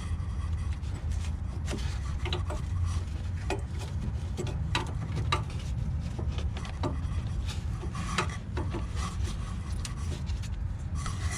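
Irregular clicks, scrapes and rubbing of hard plastic and metal as a fuel hose's quick-connect fitting is pushed back onto a new inline fuel filter, over a steady low hum.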